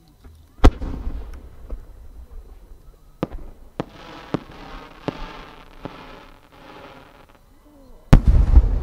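A 12-inch (No. 10) aerial firework shell: a sharp launch thump, then a string of sharp cracks from the small flowers on its rising tail and a hiss as it climbs. Near the end comes the loud boom of the shell bursting, with a low rumble after it.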